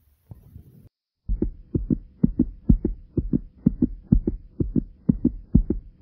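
A fast human heartbeat, loud double thumps (lub-dub) about twice a second, racing after exercise. It starts a little over a second in, after a moment of faint low rubbing.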